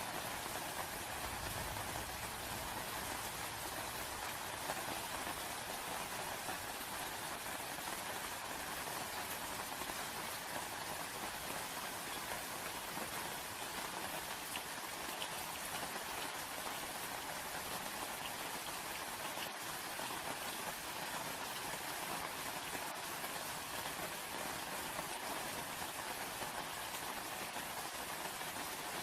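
Steady rain falling: an even hiss of many drops that does not let up or change.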